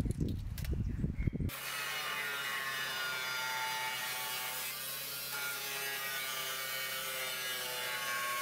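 Irregular low knocks and rustling for about the first second and a half. Then an angle grinder's cut-off disc cuts into the side of a rusted steel 44-gallon drum with a steady high whine.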